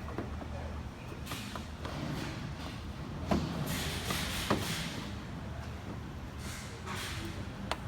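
Hand-handling noises on the car's hood and plastic cover: a few light knocks and several short scraping rustles over a steady low hum.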